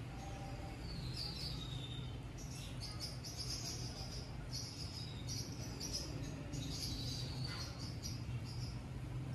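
Intermittent high-pitched chirping from small animals, coming in short clusters, over a steady low hum.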